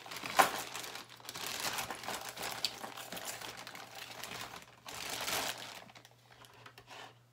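Rustling and crinkling with scattered clicks and knocks as someone rummages through supplies looking for a blade, with a sharp knock about half a second in; the sounds die down after about six seconds.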